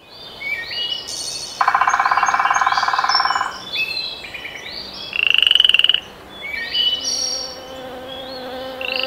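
Meadow sound effects of animal calls: short chirps and trills throughout. The loudest parts are two rattling, pulsed croaks, one from about 1.5 s in that lasts nearly two seconds and a higher one about 5 s in. A steady low buzzing hum comes in near the end.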